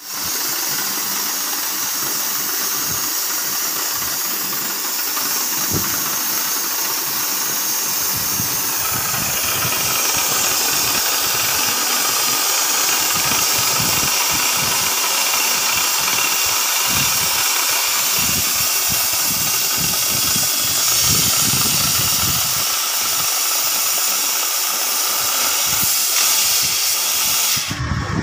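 CNC oxy-fuel cutting torch burning through thick steel plate: a loud, steady jet hiss with an irregular low fluttering underneath. The hiss cuts off suddenly near the end.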